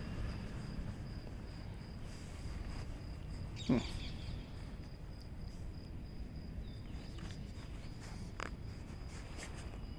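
A puppy gives one short yelp that falls in pitch about four seconds in while play-biting a person's trouser leg. A steady faint high whine and a low rumble run underneath.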